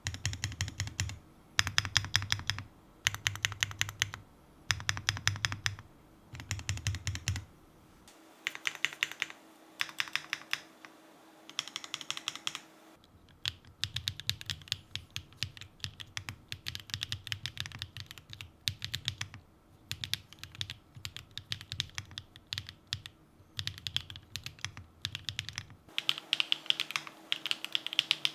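Typing on a Hola mini mechanical keyboard built with factory-lubed Candy Vanilla switches, no foam inside, and PBTfans Count Dracula keycaps: keys clacking as they bottom out. Short bursts of rapid keystrokes for the first half, then steady continuous typing.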